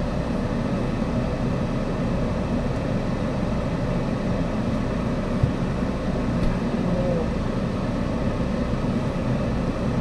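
Steady low hum of a car idling, with one brief tap about halfway through.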